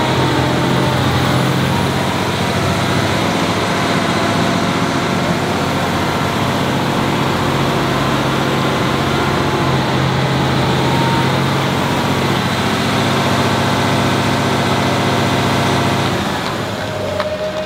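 Big tractor diesel engines, the Fendt 1050 Vario's six-cylinder loudest, running hard and steady under the heavy load of a tug-of-war pull, easing off near the end.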